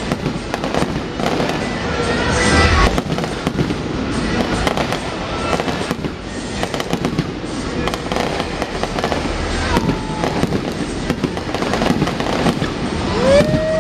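Aerial fireworks shells bursting in a dense, continuous run of bangs.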